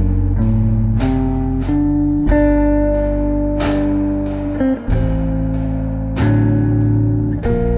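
Jazz trio recording: electric guitar chords struck and left ringing, changing about every second or so, over a low bass line.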